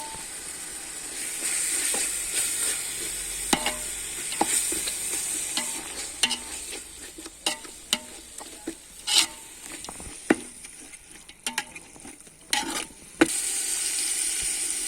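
Biryani ingredients sizzling in hot oil while being stirred, with scattered knocks and scrapes of the stirring spoon against the pot. The sizzle turns steady and louder near the end.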